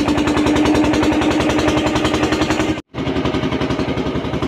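Engine of a wooden motor boat running steadily under way, loud, with a rapid, even knocking beat over a steady hum. The sound breaks off for an instant a little under three seconds in and resumes with a slightly different tone.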